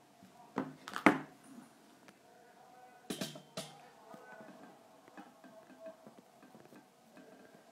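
Handling noise from the filming smartphone being gripped and set in place: a few sharp knocks and rubs, the loudest about a second in, then two more around three seconds in, over a faint steady hum.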